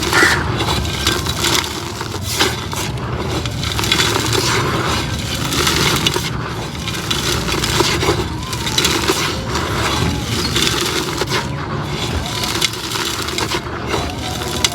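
Pink concrete pot being crumbled: a continuous dense crackling and crunching with many small snaps as the pieces break up.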